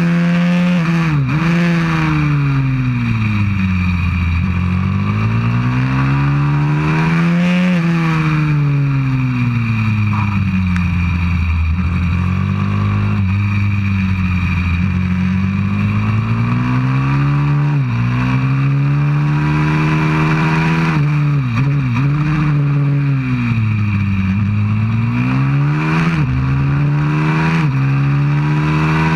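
A 190cc pit bike's single-cylinder four-stroke engine, heard from a camera mounted on the bike, revving hard around a track. The pitch climbs steadily for several seconds at a time under acceleration, then drops sharply with quick up-and-down blips as the rider brakes and shifts down for corners, several times over.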